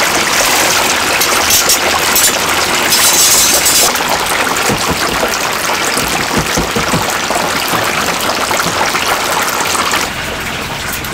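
Water running steadily from a tap in a steady rushing stream, louder for a moment about three seconds in and easing off a little near the end.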